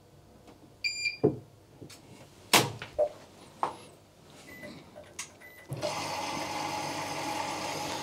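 Bosch front-loading washing machine starting a quick wash: a short electronic beep about a second in, a few sharp clicks, then from about six seconds a steady rush of water as the machine begins filling the drum at the start of the program.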